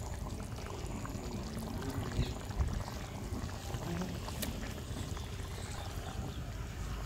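Fish curry simmering in an aluminium karahi, a steady bubbling hiss. A single sharp click comes about four and a half seconds in.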